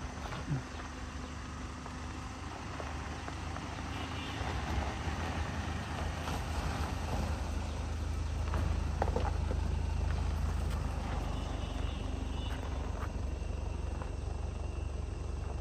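Mitsubishi Pajero diesel engine running under load on a steep off-road climb, a steady low drone that grows louder about four seconds in and is loudest around the middle.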